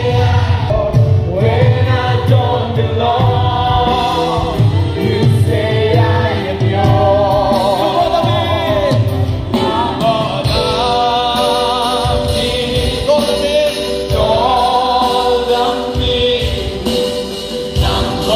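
A group of voices singing a Christian worship song in chorus, accompanied by a band with a steady beat.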